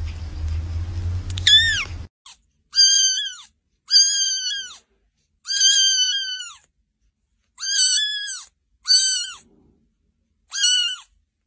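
Two young kittens mewing: one high-pitched mew from a grey tabby kitten, then six shrill mews in a row from a white kitten, each half a second to a second long with short pauses between.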